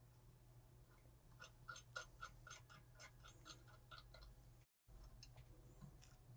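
Faint, quick metallic clicking, about four ticks a second, as small nuts are spun by hand onto the threaded mounting-bracket bolts of a marine stereo; the sound cuts out for an instant near the end, and a low steady hum runs underneath.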